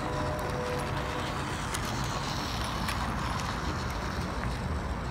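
Steady outdoor street ambience: a low rumble of traffic with a few faint clicks.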